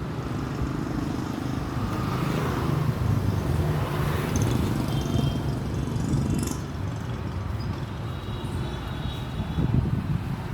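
Road traffic rumbling steadily, swelling a little and easing off as vehicles pass.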